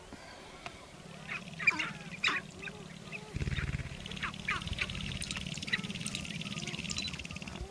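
Sharp-tailed grouse on a lek: several short, sharp calls in the first half. From about a third of the way in, a low, rapid rattling buzz of males doing their stamping, tail-rattling display dance carries on to the end.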